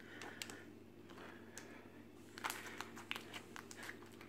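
Clear crystal slime with beads being stretched and squished by hand, giving faint crunching and crackling with small scattered clicks, busiest from about two and a half seconds in.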